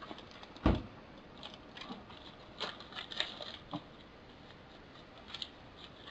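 Hands taking papers and packaging out of a product box: a single thump a little under a second in, then scattered light rustles and clicks.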